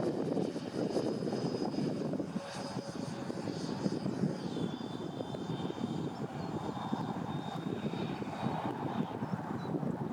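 Twin 80 mm electric ducted fans of a Freewing MiG-29 model jet in flight: a high fan whine over a loud rushing noise. The whine drops in pitch about four seconds in, then holds steady.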